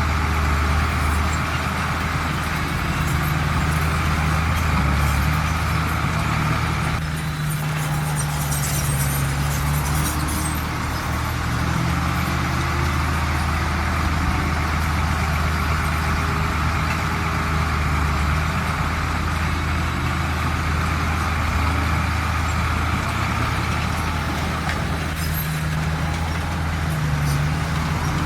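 Heavy diesel earthmoving engine running steadily under work, with a short dip in level about seven seconds in and a few seconds of high hissing noise just after it.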